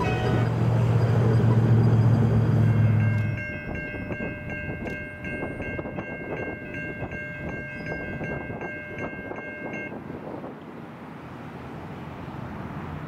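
Self-propelled locomotive crane approaching on the track, a loud low engine drone in the first three seconds or so that drops off sharply. A steady high-pitched ringing chord then sounds in regular short pulses for about seven seconds over the rumble of the approaching machine.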